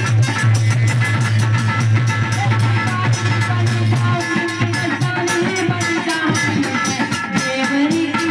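Jas devotional folk song music: a fast, steady percussion beat under a melody with a sustained low note.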